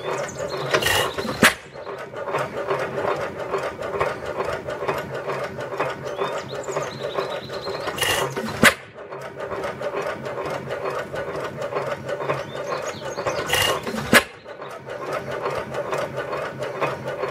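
5-1/2 hp Manitoba hit-and-miss stationary engine running, its valve gear clattering fast and steadily as it coasts, with three sharp firing bangs several seconds apart.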